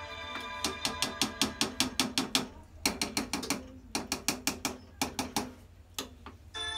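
Metal spoon stirring thick white sauce in a saucepan, clinking against the pot's side in quick runs of about five or six clicks a second with short pauses between strokes.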